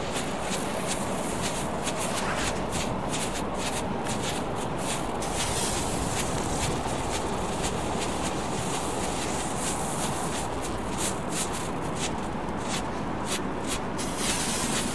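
Ground strobe ("blitz") fireworks crackling, a rapid irregular run of sharp pops and clicks, with a stretch of hissing fizz about five to seven seconds in and again near the end.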